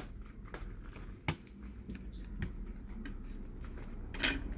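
A few small clicks and taps from laptop parts being handled and fitted during reassembly, one sharp click about a second in and a louder one near the end, over a steady low hum.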